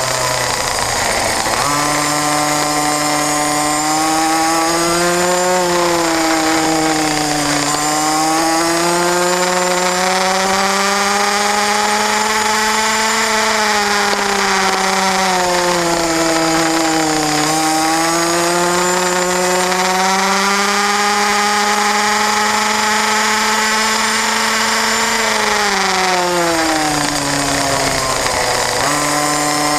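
Racing kart engine at full race pace, its pitch climbing slowly as it pulls, then falling away several times as it slows, with the deepest drops near the start and again near the end.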